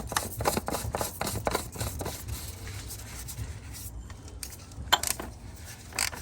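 Oil filter housing cap with the new cartridge being fitted and turned into the filter housing by hand: a run of small plastic clicks, scrapes and rubs, busiest in the first couple of seconds, then two sharper clicks near the end.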